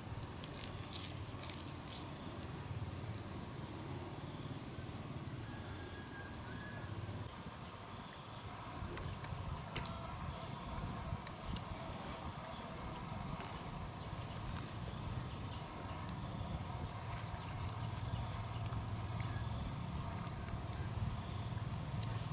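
Steady high-pitched insect chorus, a continuous trilling drone that runs without a break, over low outdoor ambience. A few faint clicks sound above it, the sharpest about ten seconds in.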